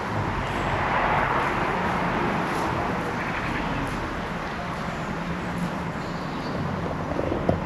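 A car passing along the street, its tyre and engine noise swelling about a second in and then slowly fading, with a few short knocks near the end.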